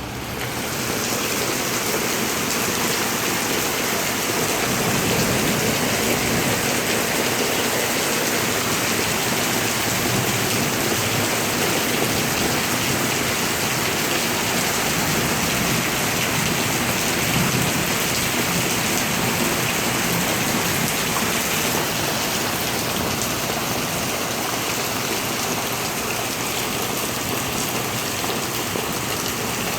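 Rain pouring down in a steady, dense hiss that swells up within the first second and then holds.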